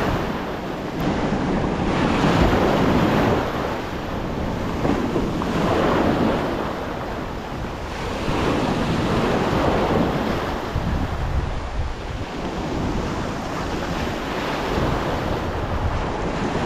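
Sea waves breaking and washing through shallow surf, surging and easing every few seconds, with wind buffeting the microphone.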